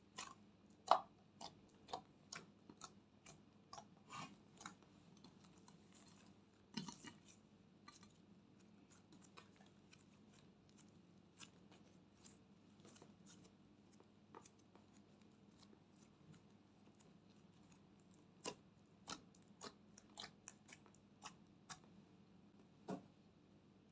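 Slime being kneaded and poked by hand in a glass dish, giving short sticky clicks and pops. They come in quick runs in the first few seconds and again near the end, with a quieter stretch in between.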